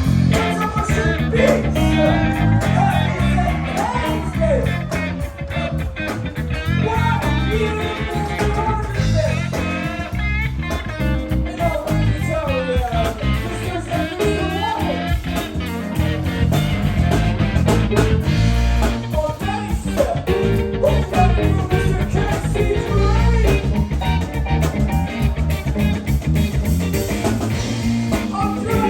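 A live band playing guitar-led, bluesy rock music with a steady beat.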